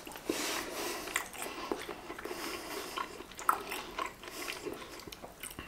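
A person chewing a piece of sausage in sauce with the mouth closed: quiet, wet mouth sounds with small irregular clicks.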